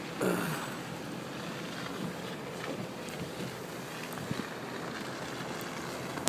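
Car creeping along at about 10 mph through a blizzard: a steady rush of wind and road noise, with a brief louder sound just after the start.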